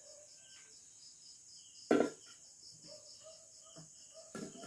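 Crickets chirping steadily in the background, with a loud knock about two seconds in and a smaller one near the end, from handling the formula scoop, tin and bottle.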